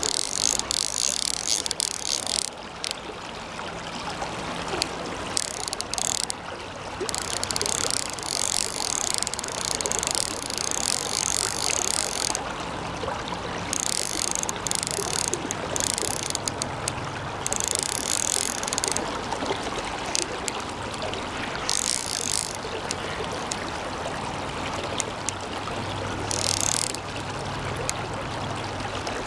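Hardy Ultralite CC 1000 fly reel's ratchet clicking in repeated bursts of one to five seconds as a hooked chub is played on the line. The river's running water sounds throughout.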